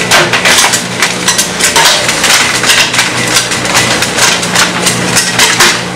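Engine-driven ore mill grinding gold-bearing rock: a dense, irregular clatter of crushing knocks over the steady hum of its motor.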